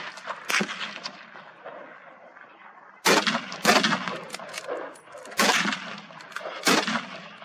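Hunting rifle shots fired at running wild boar: about six sharp reports, each echoing, two of them in quick pairs about half a second apart.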